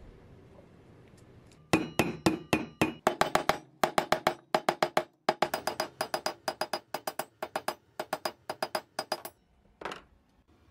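A small hammer rapidly tapping the end of a steel axle that holds a hard rubber wheel on a pressed-steel toy truck part, each strike a sharp ringing metal tap, about four to five a second. The taps pause briefly about halfway through, and there is one last clink near the end.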